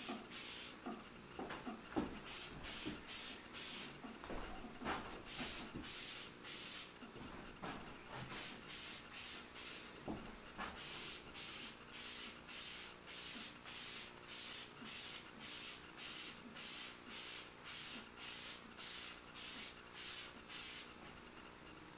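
Aerosol can of spray lacquer hissing in many short bursts, about two a second through the second half, stopping about a second before the end. A few light knocks come in the first half.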